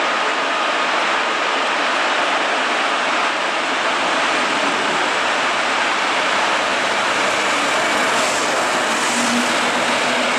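Double-deck S-Bahn push-pull train pulling out and rolling past, a steady rolling noise of steel wheels on rails. Near the end a faint low hum joins as the pushing class 143 electric locomotive goes by.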